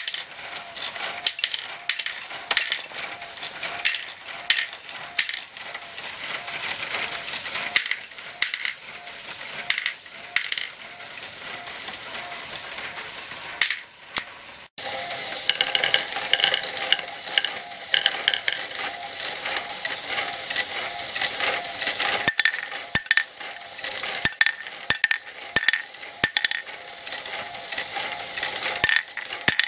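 LEGO Technic Great Ball Contraption module running: a motor drives plastic gears with a steady whine while plastic balls click and clatter as the mechanism pushes them along. The sound drops out briefly about halfway through.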